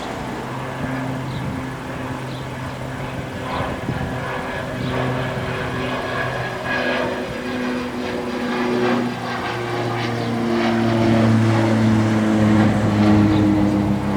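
Jet engines of an Emirates Airbus A380 on landing approach, a low droning hum with steady tones that grows louder as it nears, loudest about two-thirds of the way in.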